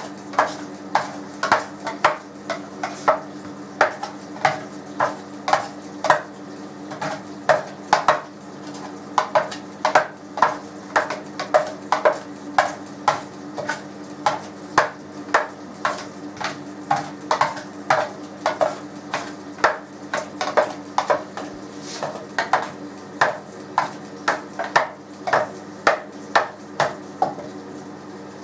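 Kitchen scissors snipping sliced onion into small pieces in a plastic container, a steady run of sharp snips about two a second.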